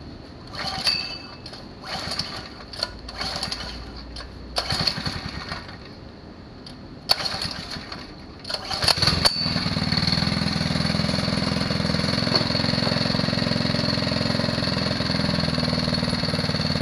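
Small Phatmoto motorised-bicycle engine being pull-started on choke from cold: several sharp pulls of the recoil starter, then it catches about nine seconds in and settles into steady running.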